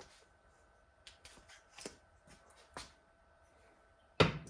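Small tools and parts being handled on a workbench: scattered light clicks and rustles, then one sharp knock near the end.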